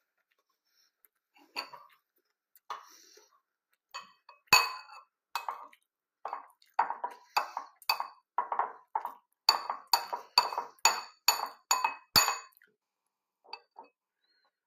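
A metal spoon clinking against a cereal bowl while eating cornflakes: a few scattered strikes at first, then a quick run of about two ringing clinks a second, stopping just after the middle.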